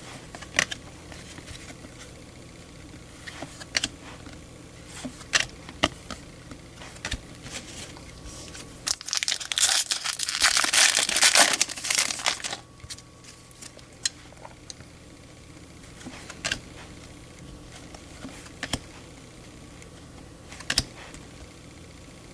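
A baseball card pack's wrapper crinkling and tearing open for about three seconds near the middle, with sharp flicks and snaps of cards being handled before and after.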